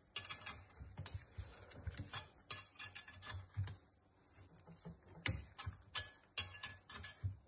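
Irregular metallic clicks and taps as a wrench turns the forcing screw of a gear puller, drawing a part out of a Massey Ferguson 35 water pump housing. A short pause about four seconds in, then a few sharper clicks near the end.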